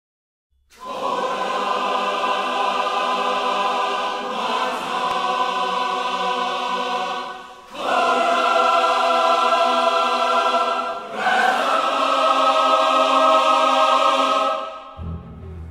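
Intro music: a choir singing long held chords that change three times, then fading out shortly before the end.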